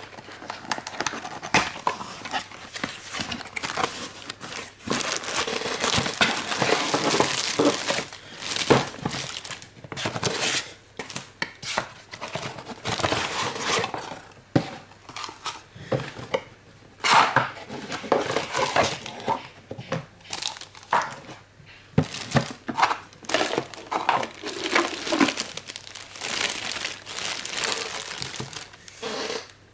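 A product box being opened and its packaging handled: irregular crinkling and rustling of wrapping, with short knocks and scrapes in between.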